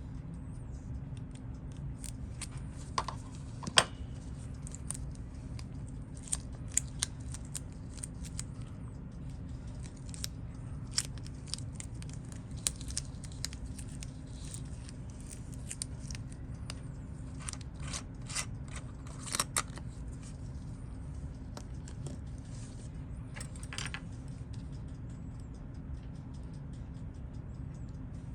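Small, sharp metal clicks and taps come at irregular intervals as a Seiko 6139 chronograph watch is dismantled with watchmaker's tools. They sit over a steady low background hum.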